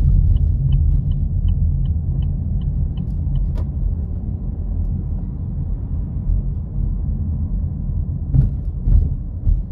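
Steady low rumble of the kind a moving vehicle makes. In the first few seconds a short high chirp repeats about three times a second, and there are a few sharp knocks near the end.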